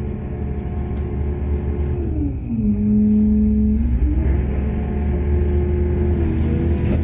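Heavy machinery diesel engine running with a low rumble; about two and a half seconds in its pitch drops and the sound grows louder for about a second, then the pitch climbs back.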